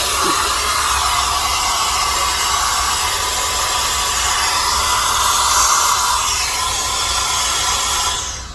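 LYLUX cordless hair dryer running, a steady, pretty strong rush of air with a faint motor tone in it, shutting off near the end.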